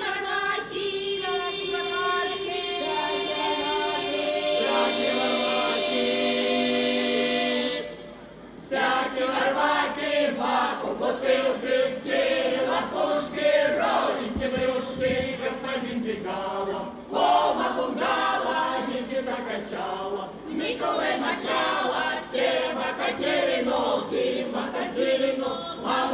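Veps folk choir singing: a long held chord for the first eight seconds, then, after a brief break, a quicker, more rhythmic passage.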